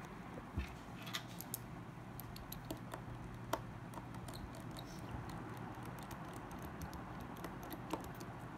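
Scattered small clicks and taps of a mobile phone's casing, screws and parts being handled with fingers and small tools during disassembly, over a steady low hum.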